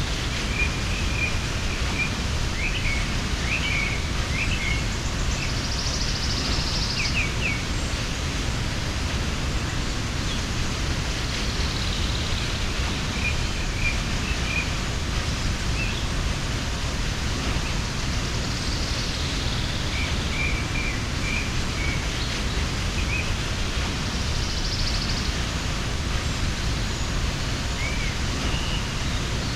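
Steady rushing of a mountain waterfall, with small birds chirping faintly now and then over it.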